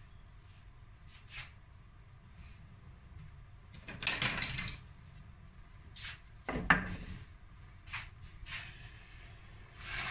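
Kitchen handling noises at a stovetop: a brief noisy burst about four seconds in, a sharp thump a couple of seconds later, then a wooden spoon starting to stir sugar syrup in a stainless steel pan near the end.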